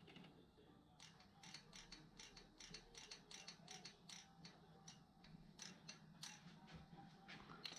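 Faint, irregular mechanical clicking, several clicks a second, starting about a second in, over a faint low hum.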